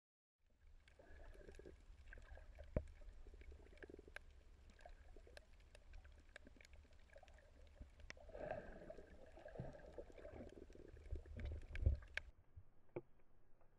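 Underwater sound picked up by a camera in its housing: a low rumble of moving water with many scattered sharp clicks and crackles, and a couple of louder knocks. Near the end the sound becomes thinner and quieter.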